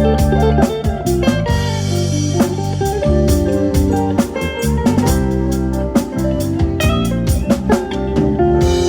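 A live band playing an instrumental piece: a drum kit keeping a steady beat under a plucked, guitar-like lead melody and bass. A bright cymbal wash comes in near the end.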